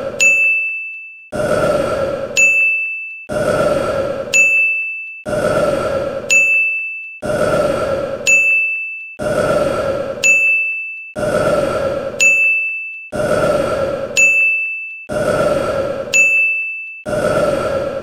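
A man's burp, about a second long, repeating in a loop roughly every two seconds, each one followed by a sharp, bright bell-like ding.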